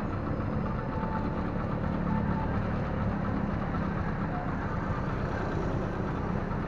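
Vehicle engine idling steadily, a low hum under traffic noise.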